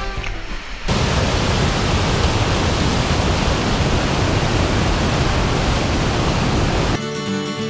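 Whitewater river rapids: a steady, even rush of churning water that starts about a second in and stops near the end, where music comes in.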